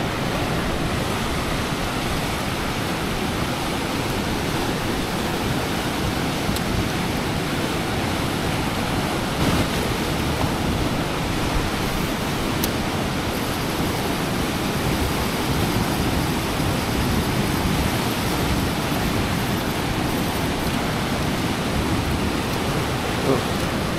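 Steady rush of fast-flowing river water at a dam, an even noise that does not change.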